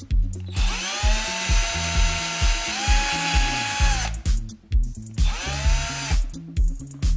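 Cordless drill boring 2 mm holes in a plastic headlight mounting tab. It spins up to a steady whine twice: a run of about three and a half seconds, then a shorter one about a second later. Background music with a steady beat plays underneath.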